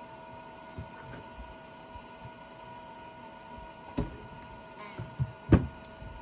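Glitter 811H battery spot welder firing on copper without flux: two sharp snaps, about four and five and a half seconds in, over a steady electrical hum. The copper-to-copper weld does not take.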